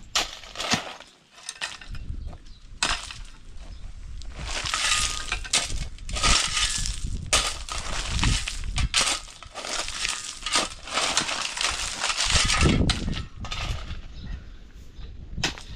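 A steel shovel and a hoe scraping and chopping into stony gravel ground. Irregular sharp clinks of metal on rock come with rattling, scraping gravel, in longer scraping spells through the middle.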